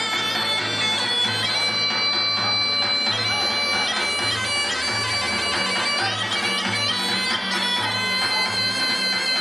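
Instrumental music: a reedy wind instrument plays a melody over a steady low beat about twice a second.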